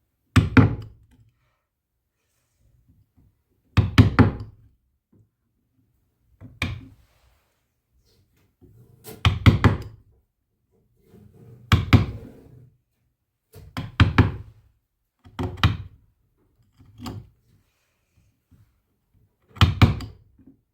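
A series of heavy knocks or thuds, about nine, each a quick cluster of strikes, coming every two to three seconds with near silence between.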